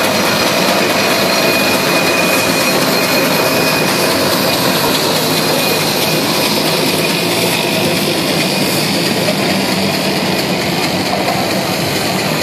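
A train of steam traction engines, led by a John Fowler crane engine, working under a heavy load of about 109 tonnes as they pass close by: a loud, steady mechanical running.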